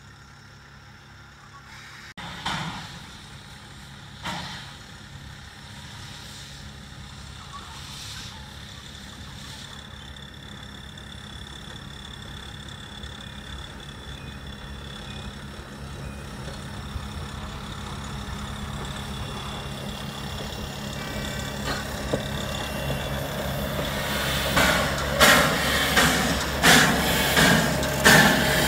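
Narrow-gauge steam locomotive getting under way and coming closer, with two sharp bursts a couple of seconds apart near the start. Its running grows steadily louder, ending in strong, regular exhaust beats a little under a second apart as it passes close by.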